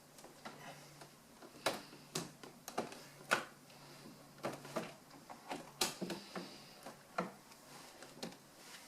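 Irregular clicks and knocks, a dozen or so at uneven intervals, from hard objects being handled and set in place, over a faint low hum.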